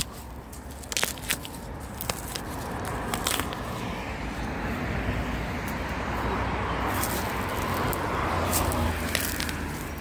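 A few crackles and snaps as dry grass and a bamboo shoot are handled near the start, then a rushing noise with a low rumble that builds over several seconds and eases near the end.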